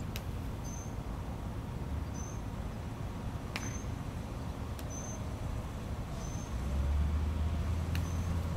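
Open-air ambience: a short high chirp repeats six times, about every second and a half, over a low rumble that swells about seven seconds in, with a few faint ticks.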